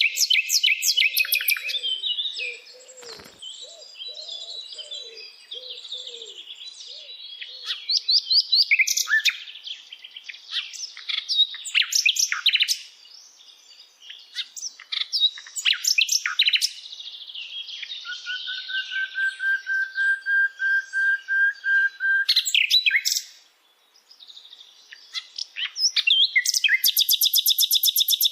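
Birds singing and chirping: many quick high chirps and short phrases overlapping, then a long, even trill of rapid notes a little past the middle, and a fast, dense trill near the end.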